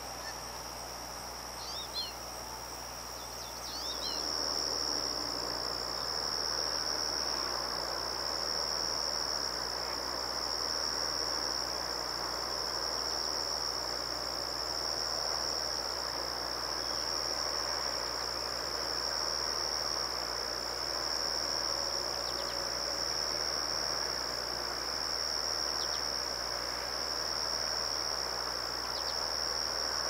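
A chorus of insects trilling steadily on one high pitch, with a few short bird chirps near the start. A soft rushing noise grows louder about four seconds in.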